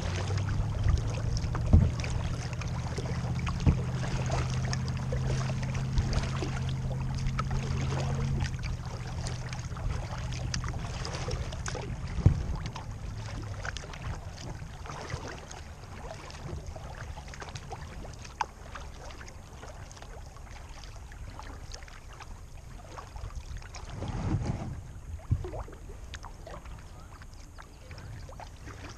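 Lake water lapping and splashing around a kayak as it is paddled, with a few sharp knocks. A low steady hum fades out before the halfway point.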